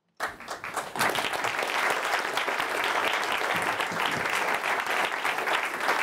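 An audience applauding, starting just after a speech ends and reaching full strength within about a second, then steady.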